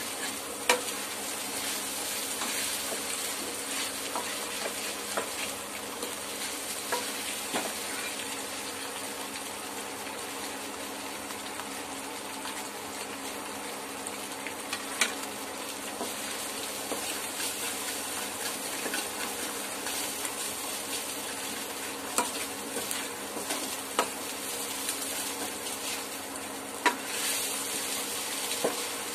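Taro root (seppankizhangu) pieces sizzling in hot oil in a kadai while a spatula stirs and scrapes them. A few sharp knocks on the pan stand out above the steady frying hiss.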